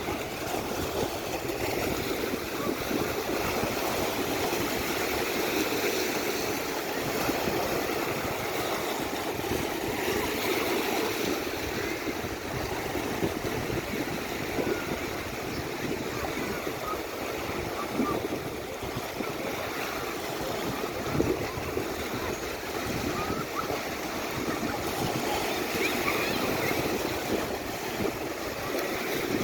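Sea surf: waves breaking and washing up the shore in a continuous, steady wash.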